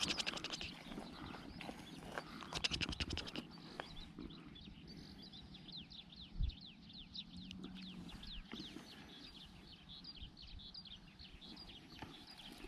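Small birds chirping, a long run of short falling notes, with bursts of rapid ticking near the start and about three seconds in.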